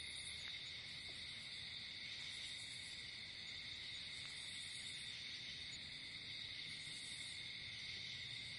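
Steady night-time chorus of crickets, a continuous high chirring that doesn't change.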